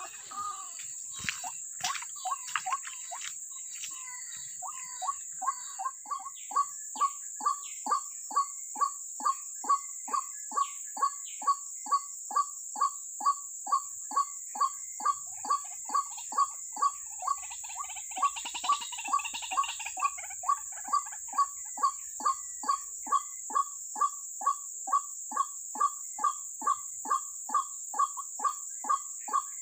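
White-breasted waterhen calls: short, identical 'kwak' notes repeated steadily about two a second, starting a few seconds in. A constant high-pitched insect drone runs underneath.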